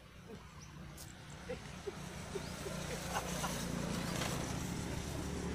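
A motorcycle running along the road, its engine hum growing steadily louder as it approaches.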